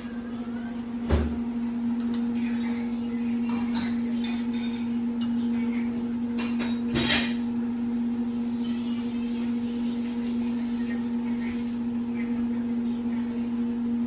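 Knocks and clinks from puppies playing around a steel dog food bowl: a solid knock about a second in and a sharp metallic clink about seven seconds in, with faint scattered taps, over a steady low hum.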